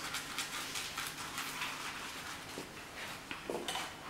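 A garlic clove rubbed over crisp, heavily toasted bread: a quick, uneven scratching that grates like a file.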